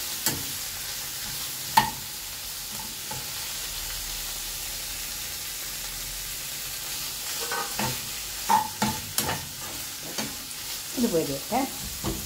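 Canned tuna, onion and green chili frying in oil in a frying pan, a steady sizzle as the filling is fried until well done. A metal spoon knocks against the pan twice in the first two seconds, then scrapes and clatters through the mixture in the last few seconds.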